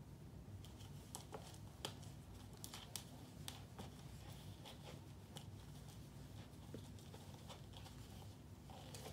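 Faint scratches and light taps of a kitten's claws and paws on a plastic bowl as it squirms about inside it, mostly in the first few seconds, over a low steady hum.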